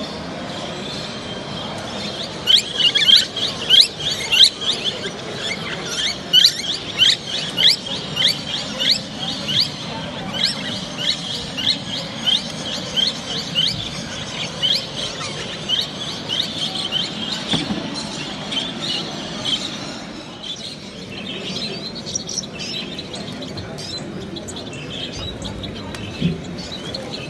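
A caged show bird chirping in a fast, repeated run of short, sharp high notes, two to three a second. It starts a couple of seconds in and dies away after about twenty seconds.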